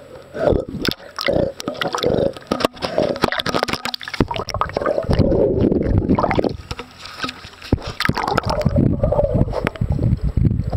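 Pool water sloshing and gurgling around a camera that dips in and out of the water, heard through the camera's own microphone. Many sharp knocks and clicks sound against the camera as a dog mouths and bites at it.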